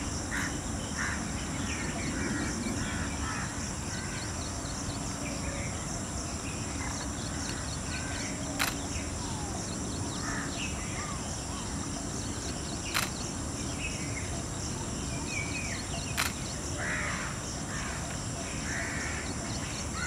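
Outdoor scrubland ambience: scattered short bird calls over a steady high drone, with three sharp clicks spread through the middle and latter part.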